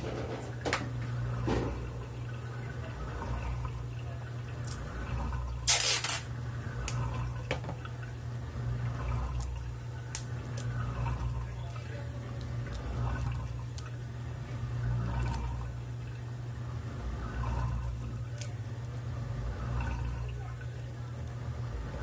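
Consul top-load washing machine filling: water running into the drum, with a steady low hum underneath. One sharp click about six seconds in.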